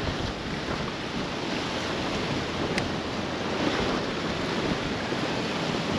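Rough sea waves washing and breaking onto the shore in a steady rush that swells a little around the middle. Wind buffets the microphone underneath.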